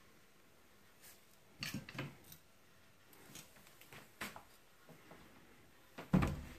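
Camera handling noise: a few scattered rustles and light knocks, the loudest about six seconds in, with no engine running.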